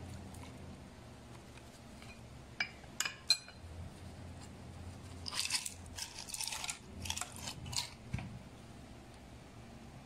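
Crushed ice poured from a drinking glass into a glass blender jug, the pieces clattering and clinking for a few seconds. A few sharp glass clinks come about three seconds in, before the pour.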